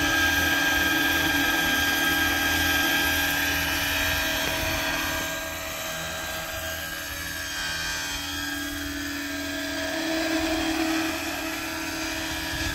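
Radio-controlled Roban Bell 429 scale model helicopter in flight, its drive giving a steady high whine. The sound fades as the model moves away about five seconds in and grows louder again around ten seconds, with the pitch shifting as it turns and passes.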